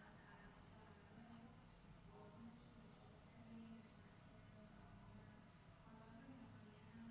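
Near silence: faint room hum with the soft scratching and tapping of a stylus writing on a touchscreen.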